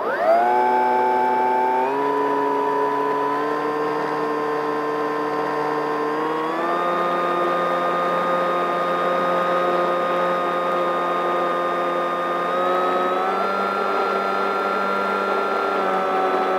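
Electric motor and propeller of a Fowl Flyer RC plane heard from on board, whining up sharply as the throttle is opened at the start. It then runs at a steady high pitch that steps up slightly a few times.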